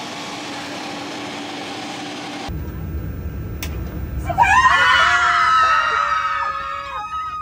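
Excited, high-pitched screaming of surprise, starting about four seconds in and held for about three seconds over a low rumble. Before it, a steady hiss with a faint hum, cut off suddenly after about two and a half seconds.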